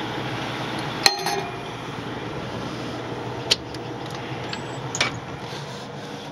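A metal clank with a short ringing as a hinged steel cover plate on a Cat D10R bulldozer is shut, about a second in. Two sharper clicks follow from the cab door and its latch, over a steady background rumble.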